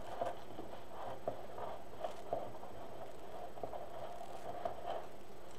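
Soft rustling of plastic deco mesh being handled, with scattered small clicks and taps, over a steady room hum.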